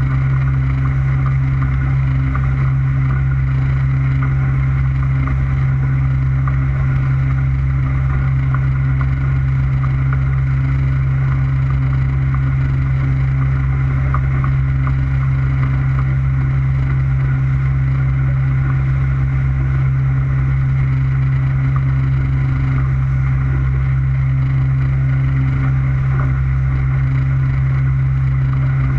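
Motorboat engine running at a steady speed while the boat cruises, a constant low drone that does not change.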